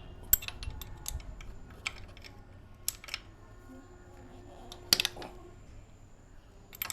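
Hand tools and metal engine parts being handled: a scattered series of sharp clicks and taps, the loudest about a third of a second in and about five seconds in.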